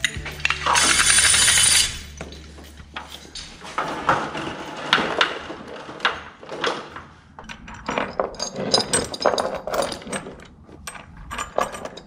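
Steel chain, carabiners and a block-and-tackle pulley block being handled and hooked up: irregular clinks, clatters and rattles of metal hardware, with a loud rustling burst about a second in.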